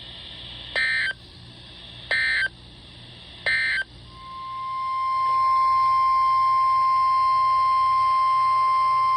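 Three short screeching bursts of Emergency Alert System SAME digital data, the end-of-message code that closes an alert. Then the single steady 1050 Hz NOAA Weather Radio warning alarm tone swells in about four seconds in and holds loud, heralding the next warning.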